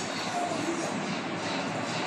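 Steady rushing background noise with no rhythm and no clear source.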